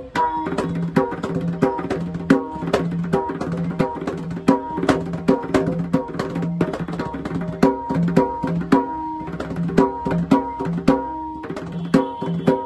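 A pakhawaj made by Damodar Goverdhandas, played in a fast, continuous run of strokes. Its treble head rings at its tuned D/D# pitch over a recurring deep bass tone.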